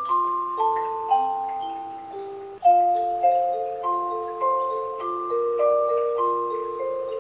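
A ZAZU Dex plush toy's sound box plays an electronic lullaby in chiming, music-box-like notes, about two a second. About two and a half seconds in, the tune changes to a different lullaby.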